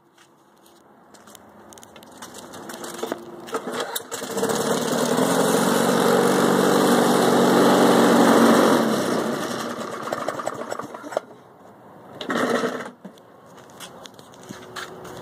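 Briggs & Stratton push lawnmower engine starting up after a few seconds, running loudly for about five seconds, then dying down and stopping. A short loud burst of sound follows about twelve seconds in.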